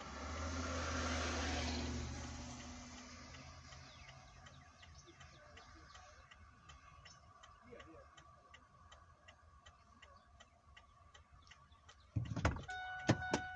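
A vehicle passes on the road, swelling and fading over the first few seconds, then a truck's flasher ticks steadily about twice a second. Near the end a loud clatter comes in with a steady two-note tone.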